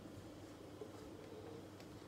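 Quiet room tone: a steady low hum with a few faint light ticks.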